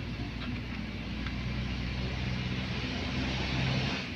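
Honda car engine idling steadily, with a few faint ticks over the running: the valve lifter ticking the owners are trying to cure with an oil additive.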